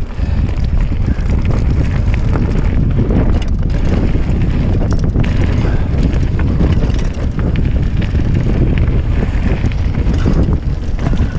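Wind buffeting the camera microphone on a mountain bike riding fast downhill, mixed with the rattle and crunch of the tyres and bike over a stony gravel trail.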